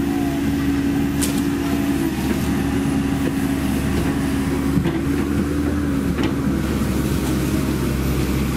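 Komatsu PC130F-7 excavator's diesel engine running steadily with a constant hydraulic whine as the machine crawls on its tracks over rubble and mud, with a few light clanks.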